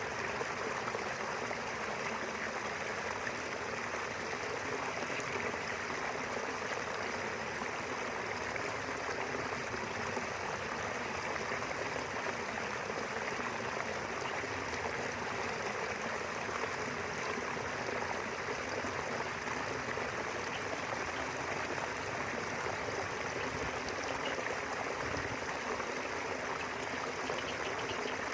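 River water flowing steadily in a continuous, even rush.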